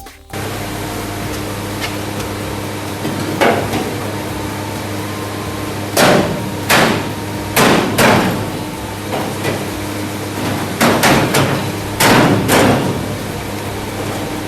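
Hammer blows on sheet metal: about a dozen sharp, irregular strikes, some in quick pairs, over a steady machine hum.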